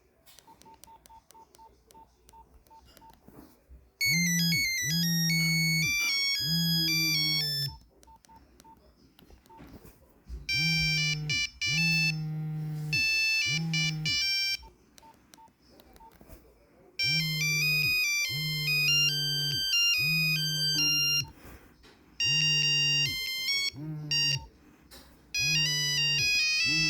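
Nokia 3310 playing its monophonic ringtones one after another: short bursts of bright, beeping melody from the phone's small speaker, with pauses between tunes. A low buzz pulses in step under each tune, and faint short beeps sound in the quiet gaps.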